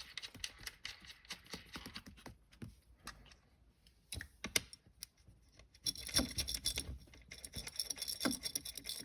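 Small clicks and taps of 10 mm nuts and metal parts being handled and threaded on, then about six seconds in a fast, steady run of ticks, as from a ratchet wrench running a nut down onto its stud.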